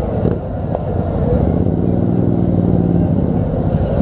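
Motorcycle engine running at low speed, a steady low rumble as the bike rolls along. A steady droning tone rises over it for about a second and a half in the middle.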